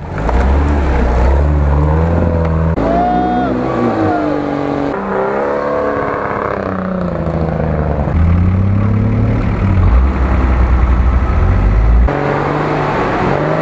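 Off-road 4x4 engines revving under load as the vehicles churn through mud and a creek, the pitch rising and falling. The sound changes abruptly every few seconds as the shots cut from one vehicle to another.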